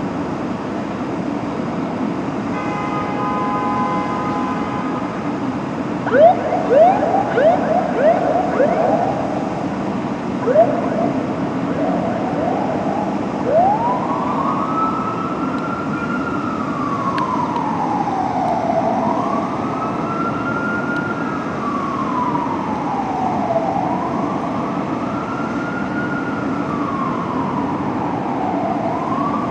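Fire engine siren going out on a code 3 response. It starts with a steady multi-tone blast for a couple of seconds, then two bursts of short, quick rising yelps. From there it settles into a slow wail that rises, holds and falls about every five seconds, over a steady low rumble.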